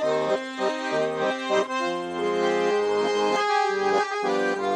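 Accordion playing an instrumental passage: a melody of short notes over sustained chords, with no singing.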